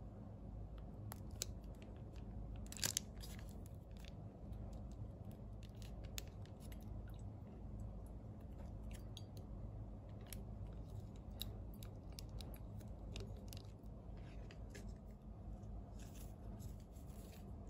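Faint handling sounds of a small plastic flower-food sachet crinkling and being torn open, with a sharper crackle about three seconds in, then scattered light clicks as flower stems are set into a glass vase, over a low steady hum.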